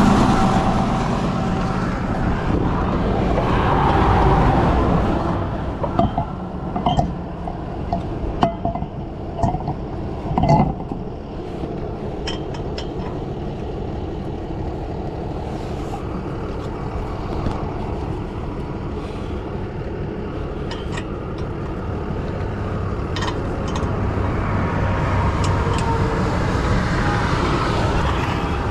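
Steady highway traffic noise that swells twice as vehicles go by, with a run of short sharp knocks from about six to eleven seconds in.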